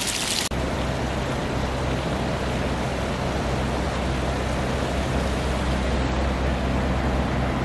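Hot-spring water splashing into a stone basin, cut off sharply about half a second in. After that comes a steady rushing of river water below, with a deep low rumble under it.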